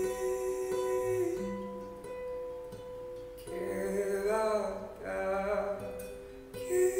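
Nylon-string classical guitar playing slow, held chords, which thin out after about a second and a half. A man's voice hums a wordless melody over it for a few seconds in the middle, and the guitar comes back in strongly near the end.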